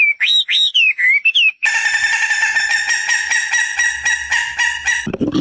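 Bird calls. First a run of short whistled notes that rise and drop, then about a second and a half in a different harsh, buzzy call at a steady pitch with a fast pulsing rattle, lasting about three seconds. Near the end a lower, deeper animal sound begins.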